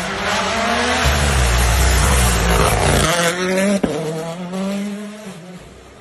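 Rally car at full throttle passing close by on a tarmac stage, its engine note loud through the pass and then fading as it goes away. A single sharp crack comes about four seconds in.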